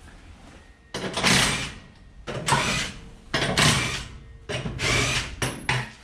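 Cordless drill with a socket running lug nuts off a dirt late model race car wheel, in about five short bursts starting about a second in.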